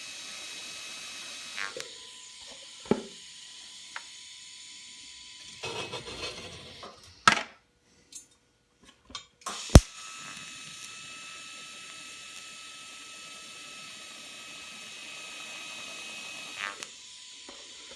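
TIG welding arc laying tack welds: a steady hiss with a thin whine that stops about two seconds in. A few clicks and knocks follow, then a sharp snap near the middle as the arc strikes again and runs steadily for about seven seconds before cutting off.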